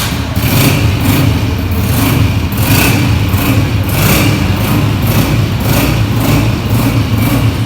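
Small motorcycle engine running steadily.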